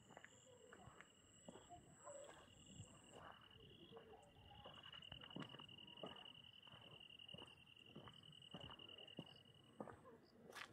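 Faint insects chirping: a steady high trill that grows a little louder in the middle, a second, higher and fainter trill, and scattered soft ticks.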